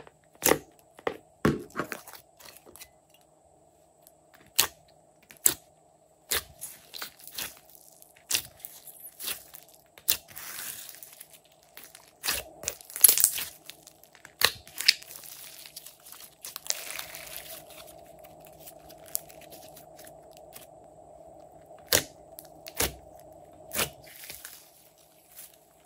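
Glossy slime squeezed and pressed by hand, giving irregular sharp pops and clicks with a few short squelching stretches.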